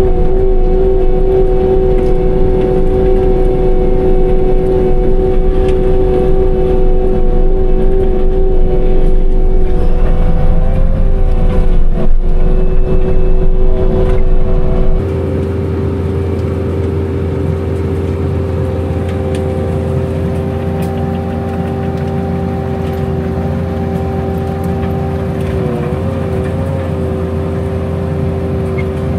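Skid-steer running a Coneteks SMD88 subsoil mulcher, engine and hydraulic rotor head going steadily with a constant whine over a low rumble. About halfway through the sound changes abruptly to a somewhat quieter level with less deep rumble.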